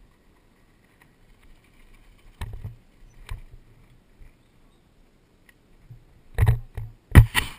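Mountain bike rolling down a gravel road, heard through a helmet camera: mostly quiet with a few scattered rattles and knocks over bumps, then a louder run of rattling and rushing noise from about six seconds in.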